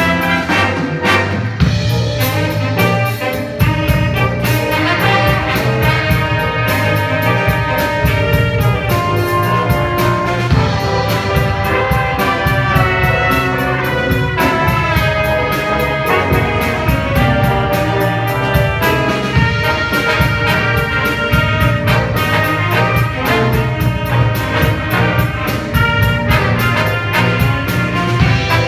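Instrumental music led by brass, with a steady beat.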